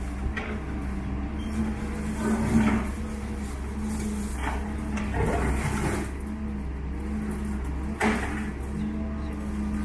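Doosan DX140W wheeled excavator's diesel engine running steadily while its bucket digs into and drags concrete and brick rubble, with repeated crashes and scrapes of falling debris, the loudest about two and a half seconds in and again about eight seconds in.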